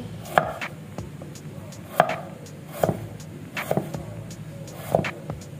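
Wide-bladed kitchen knife slicing garlic cloves on a wooden cutting board: separate knocks of the blade on the board, about one a second and unevenly spaced.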